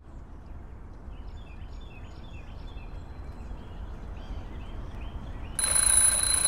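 Birds chirping over a low background rumble: short chirps repeated in quick runs. Near the end an alarm clock starts ringing with a shrill, steady tone, much louder than the birdsong.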